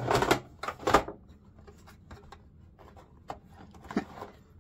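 Plastic toy playset parts handled and slid into place: a loud clatter at the start and a sharp knock about a second in, then light scattered clicks and rubs.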